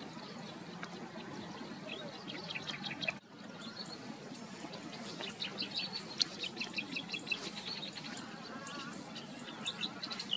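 Small birds chirping in quick series of short, high notes over a steady outdoor background hiss. The sound breaks off sharply about three seconds in, and the chirping that follows is busier.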